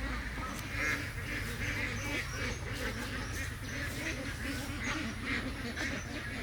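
A flock of domestic ducks quacking, many short calls overlapping one after another, over a steady low rumble.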